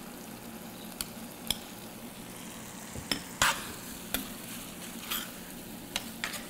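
Raw cubed chicken sizzling in a stainless pan of hot tomato and spice sauce for chicken kadai, while a metal spoon scrapes and clicks against the pan as the chicken is stirred in. The clicks come irregularly, the loudest about three and a half seconds in.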